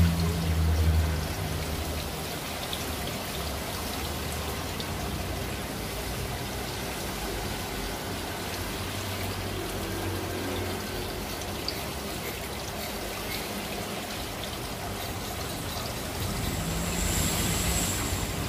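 Aquarium water trickling and splashing steadily, as from a filter return or air line in the tank, with a low hum at the start and again near the end.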